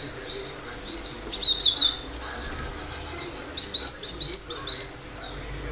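Cinereous tit (gelatik batu) singing: a short soft phrase a little over a second in, then a loud, fast run of sharp, high repeated notes past the halfway point.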